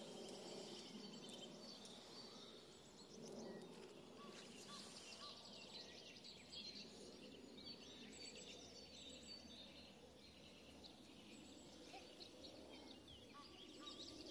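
Faint birdsong: many small birds chirping and trilling in short phrases over a quiet outdoor hiss.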